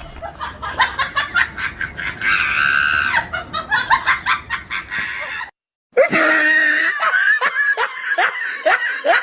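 Shrieking laughter in rapid, repeated bursts with a held high scream, broken by a sudden half-second of silence about halfway through, after which a run of short, falling laughing cries resumes.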